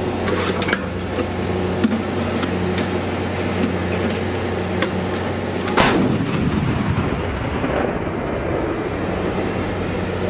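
A single artillery gun firing about six seconds in: one sharp blast followed by a rolling rumble that fades over a couple of seconds. A steady engine hum runs underneath, with a few small clicks.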